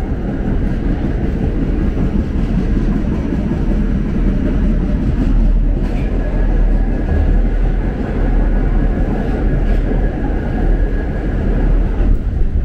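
New York City subway N train running along the track: a steady, loud rumble with a faint high whine above it.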